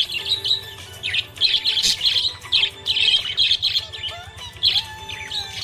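Budgerigar chirping: a rapid, uneven stream of short high chirps and warbles.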